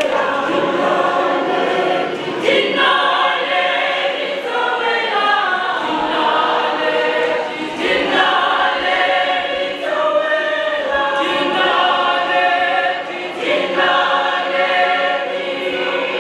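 A mixed choir of men and women singing together, unaccompanied, in phrases broken by brief pauses every few seconds.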